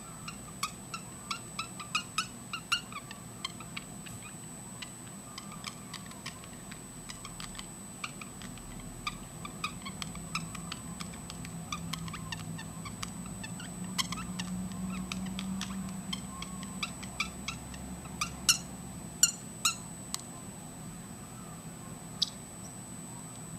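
Parrotlet chirping: a rapid string of short, high chirps and clicks for most of the time, with a few louder calls near the end.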